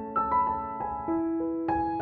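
Background piano music: a gentle melody of single struck notes following one another, a few each second.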